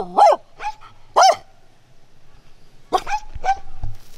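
A hunting dog gives short yelping barks whose pitch bends up and down: a few right at the start, a loud one about a second in, and a short run of weaker ones near three seconds in.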